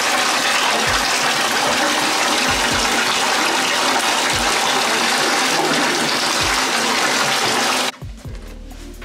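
Water running into a bathtub, a loud steady rush that cuts off abruptly near the end.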